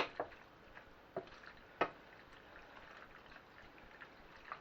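A spoon stirring pasta and tomato sauce in a pan: four sharp clinks of the spoon against the pan in the first two seconds, then only faint wet liquid sounds.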